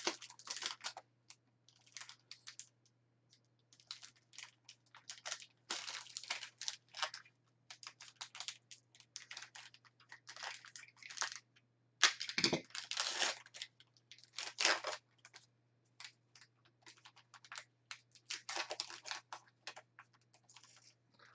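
A trading card pack being torn open and handled: the wrapper crinkles and cards are slid and shuffled in short, irregular crackling rustles, with a louder burst about twelve seconds in.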